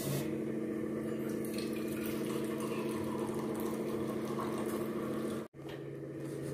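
Tea being poured from a steel pot into small steel cups, a steady pour that cuts off suddenly about five and a half seconds in.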